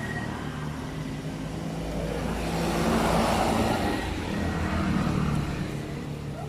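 A motor vehicle passing close by: engine and road noise swell to a peak about three seconds in, ease off, then rise again around five seconds before fading.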